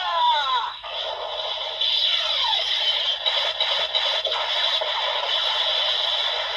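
Kamen Rider Saber DX Kaenken Rekka toy sword's built-in speaker playing its three-book finisher sound effect: several falling sweeps in the first second, then a long, dense, noisy effect.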